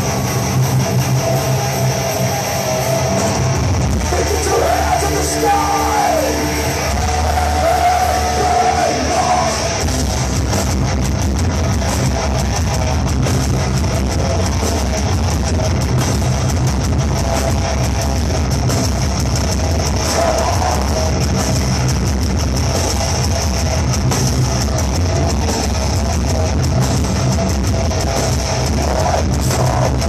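Live heavy metal band playing loud: distorted electric guitars, drums and yelled vocals, heard from among the crowd in the hall. The drumming gets denser from about ten seconds in.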